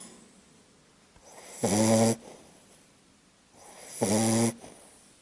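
A sleeping Labrador Retriever snoring: two half-second snores, one about one and a half seconds in and one about four seconds in, each with a low rasping pitch.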